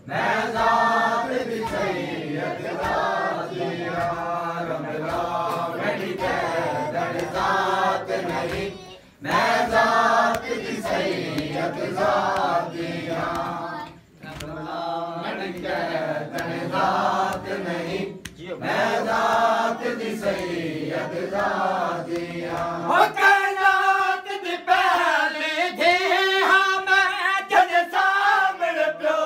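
A group of men chants a noha, a Shia mourning lament, in unison, line after line. There are brief breaks about 9 and 14 seconds in. Over the last several seconds the singing moves higher in pitch.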